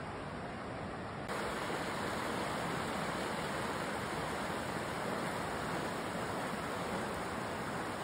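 Mountain stream flowing over rocks, a steady rushing of water that gets louder about a second in.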